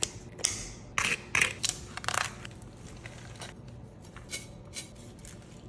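Knife crunching through the crisp skin of a whole roasted suckling pig: a quick run of sharp crunches over the first two seconds or so, then fewer, fainter ones.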